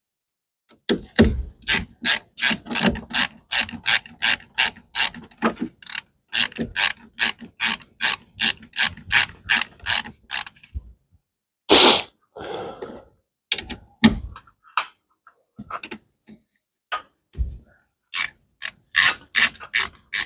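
Hand ratchet wrench clicking in quick, even strokes, about three clicks a second, as a bolt is turned. Partway through it stops for a loud metal clank and a few scattered taps, then the ratcheting starts again near the end.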